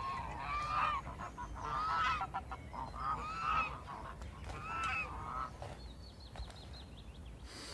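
Geese honking, a string of short calls that die away after about five seconds.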